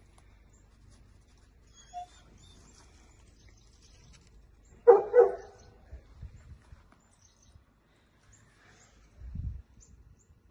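A dog barking twice in quick succession about five seconds in, with faint bird chirps in the background and a low thump near the end.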